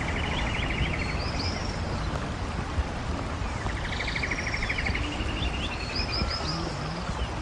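Songbirds singing: a rapid trill that comes twice, each about a second and a half long, among high whistled slurred notes, over a steady low rumble.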